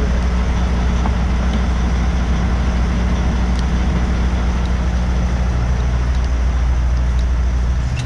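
Semi truck's diesel engine running steadily with a low hum, under a steady hiss.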